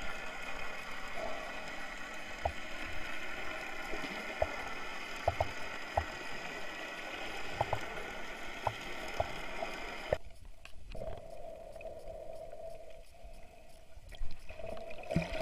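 Water gurgling and lapping, with scattered small clicks. About ten seconds in, the sound turns muffled and loses its high end.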